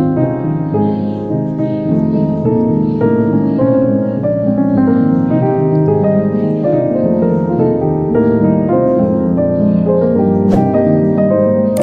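Background music led by piano with a gentle melody.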